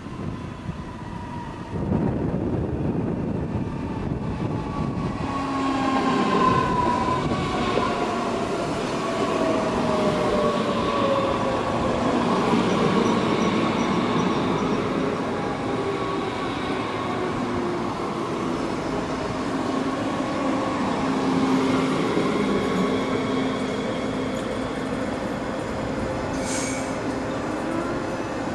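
DB class 422 S-Bahn electric multiple unit running in and braking to a stop. Its traction motors whine, falling steadily in pitch over the first dozen seconds, over wheel rumble and a steady hum. A brief hiss comes near the end.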